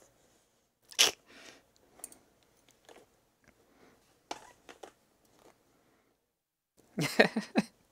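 Scattered knocks, taps and rubbing from silicone oven mitts handling lock-picking tools and a padlock clamped in a vise, with a denser flurry of handling sounds near the end.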